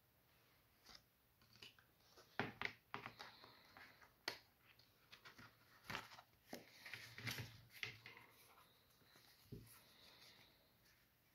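A clear plastic thermometer case and a folded paper instruction leaflet being handled and opened. Scattered sharp clicks and taps of plastic mix with short paper rustles, quiet overall.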